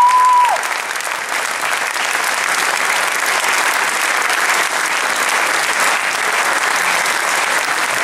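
A large audience applauding steadily. A high whistle from the crowd rises and holds, then drops away about half a second in.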